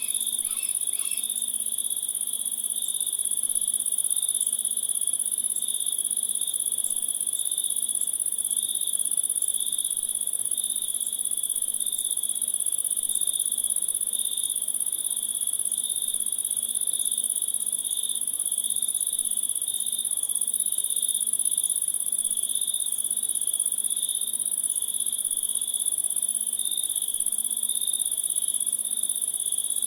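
A continuous night chorus of crickets and other insects: a constant high-pitched buzz under a lower, steadily pulsing trill. A few quick chirps come in the first second.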